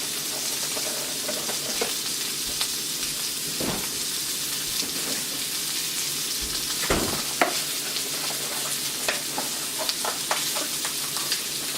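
Meat patties frying in a pan, a steady sizzle, with a few light knocks and clicks.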